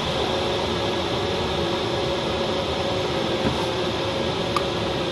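Steady rush of air over the canopy and fuselage of an engineless Duo Discus glider, heard inside the cockpit, with a faint steady tone running under it and one small click near the end.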